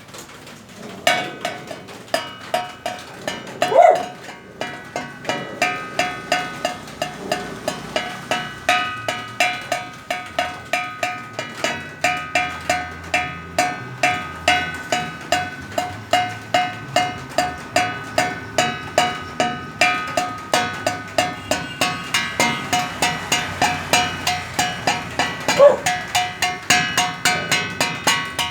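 Metal object struck over and over in a steady rhythm, about two to three ringing strikes a second, like a cowbell.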